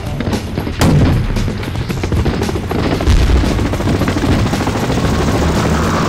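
Battle sound effects of rapid gunfire and booms over background music, with a sharp bang about a second in and a deep boom around the middle.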